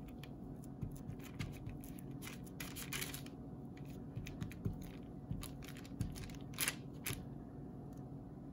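Hands pressing and rolling balls of grated soap scraps on a sheet of paper: soft crackles and scratches of crumbly soap and crinkling paper, busiest about three seconds in, with a couple of sharper crinkles near the end, over a steady low hum.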